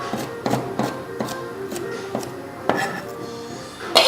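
Knife chopping bell peppers on a cutting board: irregular sharp strikes, about two a second, the loudest near the end.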